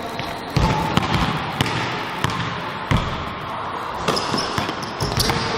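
Basketball dribbled on a hardwood gym floor: about seven sharp bounces at an uneven pace, roughly one every half second to second.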